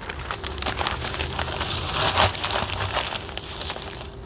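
Paper being crumpled by hand as kindling, a dense run of crackling and rustling that is loudest about two seconds in.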